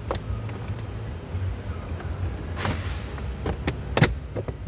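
Trim cover piece being fitted back on during reassembly of a 2020 Hyundai Ioniq's steering wheel: a run of sharp clicks and knocks, the loudest about four seconds in, over a steady low hum.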